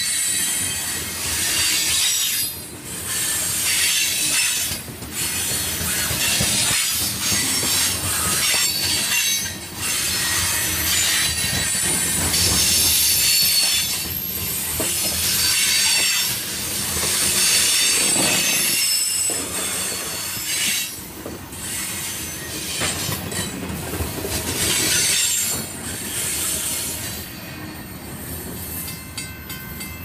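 Covered hopper cars of a freight grain train rolling past close by: wheels rumbling over the rail with a high-pitched wheel squeal. The sound eases off near the end as the last cars go by.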